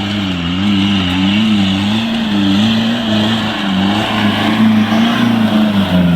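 Off-road vehicle's engine running under load, its revs rising and falling over and over as the driver works the throttle.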